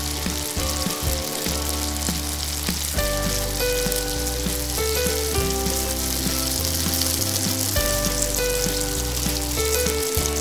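Falafel balls deep-frying in hot oil, a steady sizzle throughout, over background music with a bass line and held notes.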